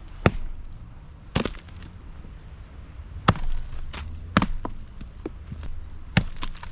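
Axe splitting a log set upright on a chopping stump: five sharp chops about one to two seconds apart, with a few lighter knocks between them. A bird chirps briefly near the start and again a little past the middle.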